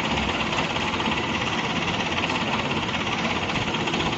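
Vehicle engine running steadily at an even speed, with a fast regular low pulsing.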